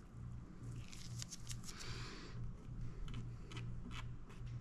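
Quiet handling noises of nitrile-gloved hands working a toothpick over a resin-coated mold: a brief rustle about a second in and scattered small clicks, over a low steady hum.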